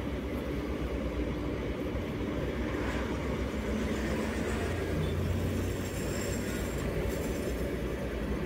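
Steady low road and engine rumble inside a Daihatsu Terios's cabin as it drives along in traffic.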